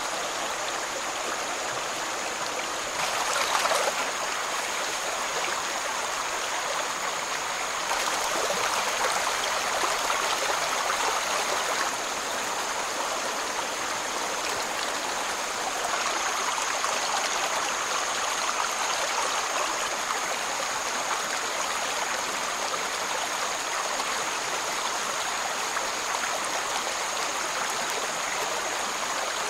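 Stream water running steadily over rocks, with a brief louder surge about three seconds in and a thin, steady high-pitched tone above the rush of water.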